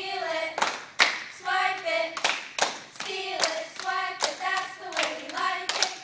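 A group of girls chanting a cheer in unison, held-out pitched words punctuated by sharp rhythmic hand claps, roughly two a second.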